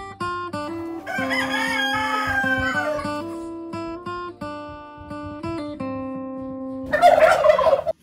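A rooster crowing once, one long wavering call that drops at its end, over plucked acoustic guitar music. A brief loud harsh sound comes near the end.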